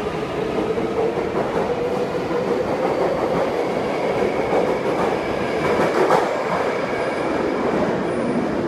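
Taipei Metro train pulling out of an underground station: the rumble of wheels on rail under a motor whine that rises in pitch as it gathers speed, with one sharp clack about six seconds in.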